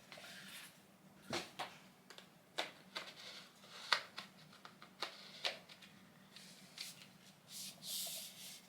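Hands unpacking a hair-styler attachment: scattered light clicks, taps and rustles of packaging, with a longer rustle near the end.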